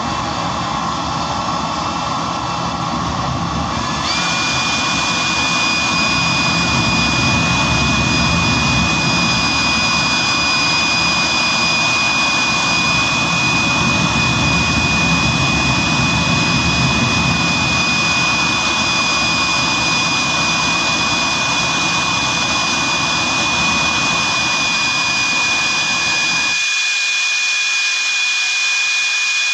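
Small butane-fuelled jet engine running with a blue flame: a steady rushing rumble with a high whine that sets in about four seconds in. Near the end the low combustion rumble cuts off abruptly as the flame goes out, leaving the whine and rush of air.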